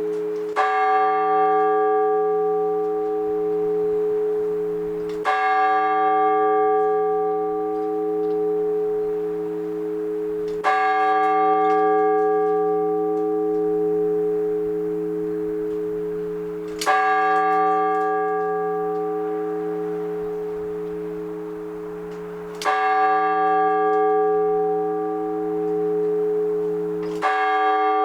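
A single large Orthodox church bell tolled slowly: six strokes, one every five to six seconds, each left to ring on with a long humming decay until the next. This is the slow single-bell ringing known as blagovest.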